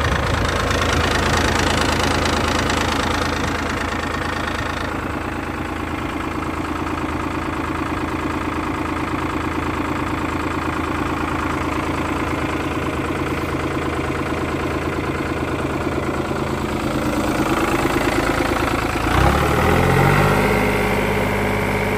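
New Holland TN75 tractor's diesel engine idling steadily with a clattering run. About three seconds before the end the engine speed steps up and holds at a higher steady speed.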